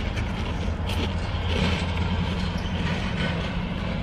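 A motor vehicle's engine rumbling steadily close by, with a deep, even hum, along with a person chewing a crunchy snack.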